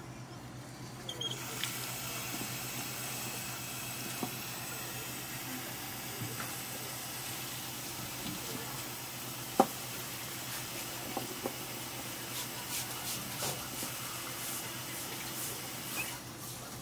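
Water running from a kitchen tap, turned on about a second in and off near the end, with light clicks and one sharp knock about halfway through, over a steady low hum.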